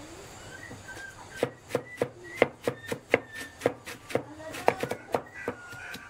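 A cleaver chopping roasted meat in a quick, steady run of sharp blows, about four a second, starting about a second and a half in.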